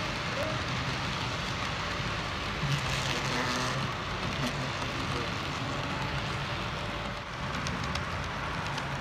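Model freight cars rolling along the layout track: a steady rolling noise of small metal wheels on rails, with a few light clicks near the end.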